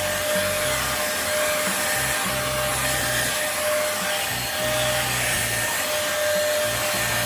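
Bolde Super Hoover vacuum cleaner running steadily with its brush head on the floor: a steady rush of suction air with a thin whine from the motor.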